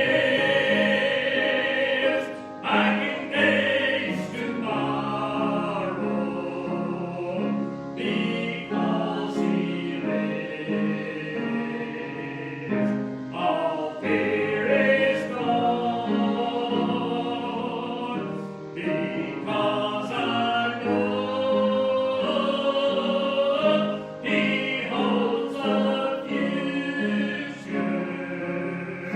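Choir singing a hymn with instrumental accompaniment that repeats low notes at an even pulse.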